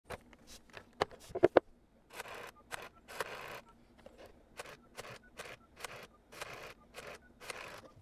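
Western Electric 302 rotary phone being dialled: a few sharp clicks in the first second and a half, then the dial pulled round and spinning back again and again, each return a short rasping whir as it pulses out a digit.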